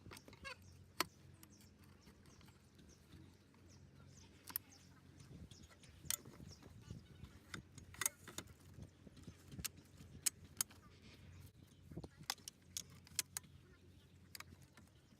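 Light, irregular clicks and knocks of the Tiwal's hiking-frame tubes being handled and pushed into the slots of the centreboard case, about twenty sharp taps over a faint low hum.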